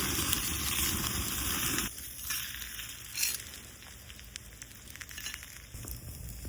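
Food sizzling over a wood fire, a dense steady hiss that drops off suddenly about two seconds in, leaving quieter scattered crackles and ticks from the fire.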